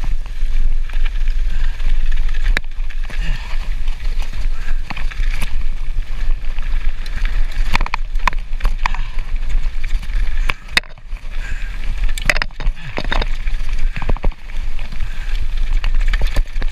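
Mountain bike ridden down a rough trail, with wind buffeting the microphone: a constant low rumble broken by frequent sharp rattles and clacks as the bike hits bumps.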